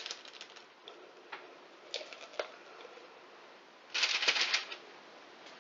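Sticky nut-and-seed dough being scraped and tipped out of a plastic measuring jug onto baking paper on a tray: a few light clicks and knocks, then a short burst of rapid scraping and clatter about four seconds in.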